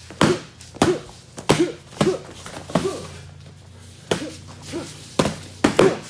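Foam practice swords smacking together and onto bodies in fast sparring exchanges: about ten sharp slaps in quick clusters, with a pause about three seconds in before a final flurry.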